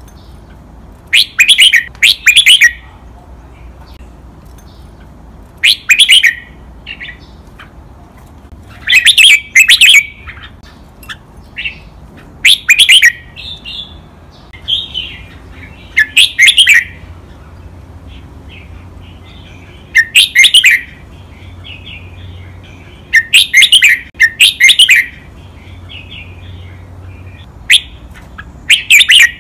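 Red-whiskered bulbul singing loud, clear song phrases every few seconds, often two in quick succession. Softer chattering comes between the phrases.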